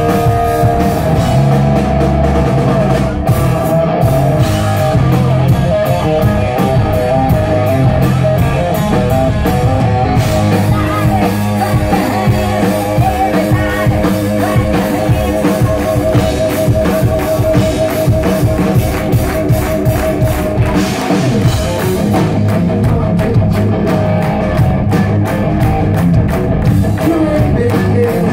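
Live rock band playing at full volume, recorded from within the audience: electric guitars and a drum kit keeping a steady beat, with singing. A long wavering note is held through the middle.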